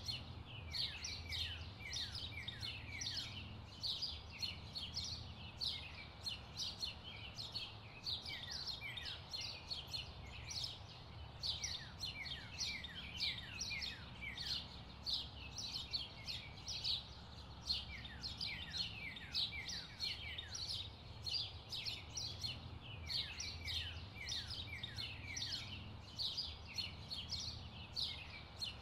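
Birds chirping: a steady stream of short, quick chirps that slide down in pitch, a few each second, over a low background rumble.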